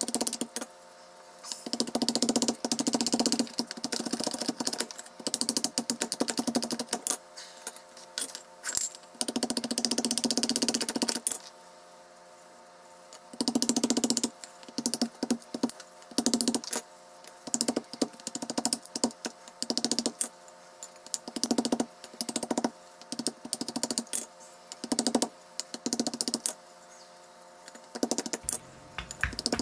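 Hand saw cutting into a wooden spoon blank held on a chopping stump: quick rasping strokes in bursts of a second or two, with short pauses between them.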